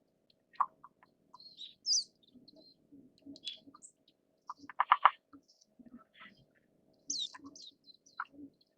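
Japanese pygmy woodpecker drumming on a tree trunk: a short, rapid roll of knocks about five seconds in, with scattered single taps before and after. Small birds chirp high above it now and then.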